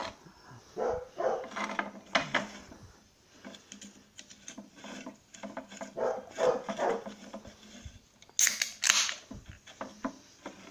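A dog barking repeatedly in short, irregular barks, with two brief sharp noises near the end.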